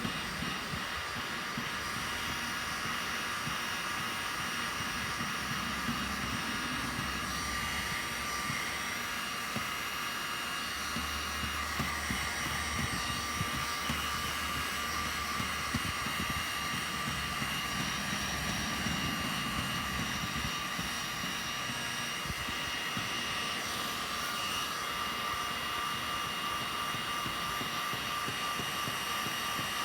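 Heat gun running steadily: a continuous blowing whoosh with a faint steady whine from its fan, heating the plastic hull to smooth out scratches.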